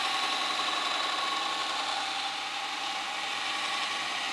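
Belt grinder running steadily with a forge-welded layered steel billet held against the belt, a constant grinding hiss with a held whine in it, taking off the billet's delaminated edge.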